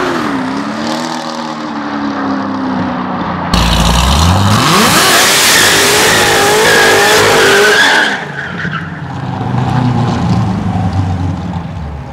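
Hennessey-tuned Corvette ZR1's supercharged V8 running past at speed. About three and a half seconds in, a cut to a louder stretch where the engine revs up steeply and the rear tyres squeal in a burnout. The sound drops back to quieter engine noise about eight seconds in and stops abruptly at the end.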